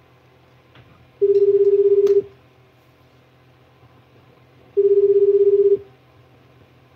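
Telephone ringback tone of an outgoing call waiting to be answered: two steady rings of about one second each, roughly three and a half seconds apart.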